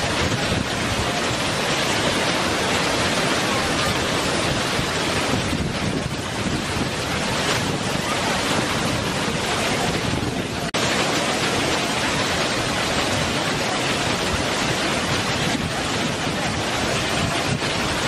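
Waterfall: white water pouring over rock, a loud, steady rush with no pitch or rhythm. A little past halfway the sound drops out for a moment.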